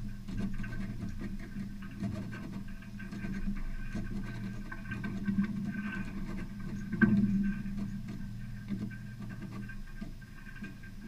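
Water lapping and splashing against a sailboat's hull under sail, with scattered small clicks and knocks on board and one louder knock about seven seconds in.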